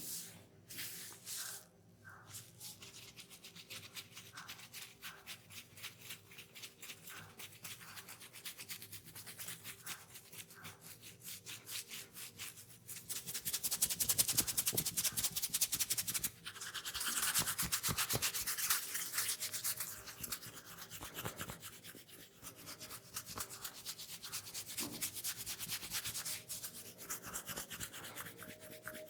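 Hands rubbing briskly during a massage: a fast, continuous run of rubbing strokes, louder for a couple of seconds about halfway through and again just after.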